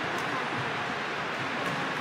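Steady noisy background of an indoor badminton hall, with two faint sharp ticks, racket strings striking the shuttlecock in a doubles rally.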